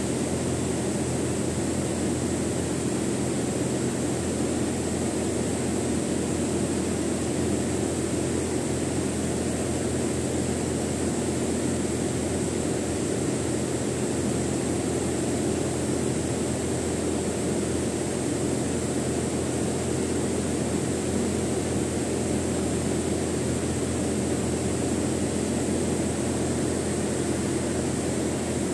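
Steady machinery drone: a continuous low hum with a constant hiss above it, unchanging throughout.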